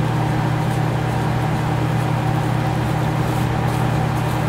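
A steady low hum runs underneath everything, with faint scratchy ticks of a small wire whisk stirring dry powder in a plastic tub.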